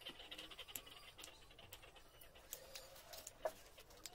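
Quiet eating sounds: soft chewing and mouth clicks, with the light clicks of a spoon against a paper plate. A brief squeak sounds about three and a half seconds in.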